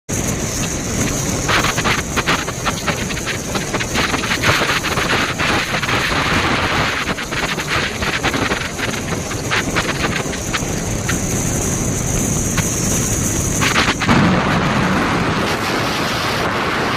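Loud rushing noise of stormy weather, with many sharp crackles and pops running through it. A steady high hiss cuts out about fourteen seconds in, and the noise turns deeper and rumbling after that.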